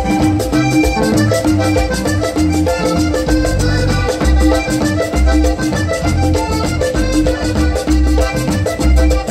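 Panamanian folk music played by a small live band: a lively melody over a steady, driving hand-drum beat.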